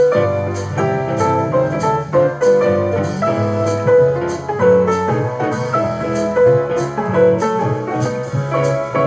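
Instrumental music with piano chords and a steady drum beat, played back through a JBL Go 4 portable Bluetooth speaker, with little deep bass.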